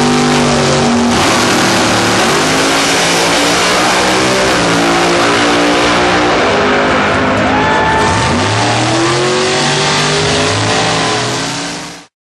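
Two drag-racing cars, one a Pro Mod Dodge Viper, making a full-throttle pass down the strip. The engine note climbs and falls back several times as the cars change gear, and the sound cuts off suddenly near the end.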